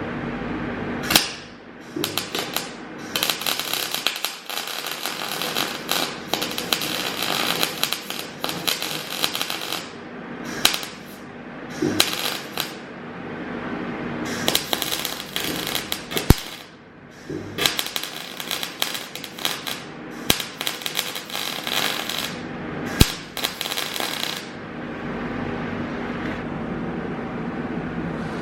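Welding arc crackling and sputtering in a series of short bursts of one to three seconds each, with brief pauses between them, as holes in a car's sheet-metal engine bay are welded shut. The bursts stop a few seconds before the end.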